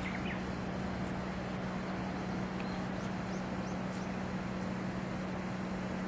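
Outdoor ambience: a steady low hum and an even hiss, with a few faint bird chirps near the start and between about two and a half and four seconds in.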